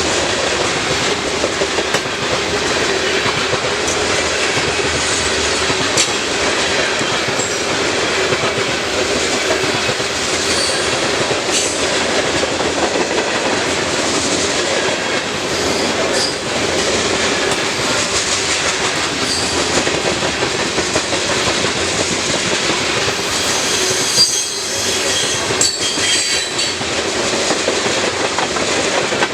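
Freight train of covered grain hopper cars rolling past: a steady rumble of steel wheels on rail, with scattered clicks over the rail joints and short high-pitched wheel squeals.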